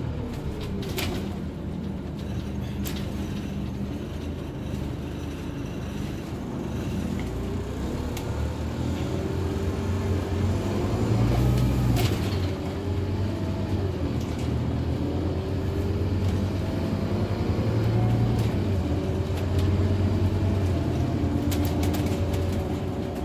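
Scania OmniCity single-decker bus's diesel engine and drivetrain heard from inside the passenger saloon as it drives, its pitch rising and falling several times as the bus pulls away and eases off. There are a few short rattles or knocks along the way.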